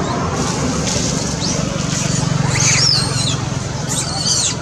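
Two short bursts of high, wavering squeaky animal calls, about two and a half and four seconds in, over a steady low hum that swells slightly in the middle.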